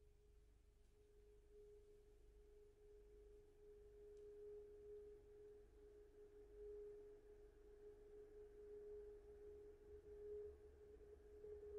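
A faint, steady pure tone holds one pitch throughout, slowly growing louder with a gentle wavering pulse, over a faint low rumble. It is a sustained tone in a contemporary piece for soprano saxophone, percussion and electro-acoustic devices.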